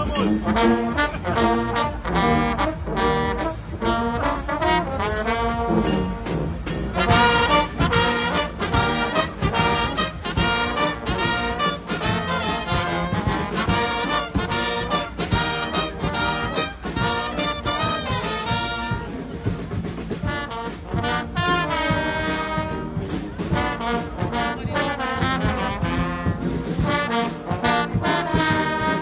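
A Guggenmusik carnival band playing live: trombones, trumpets and sousaphones over a beating bass drum and cymbal.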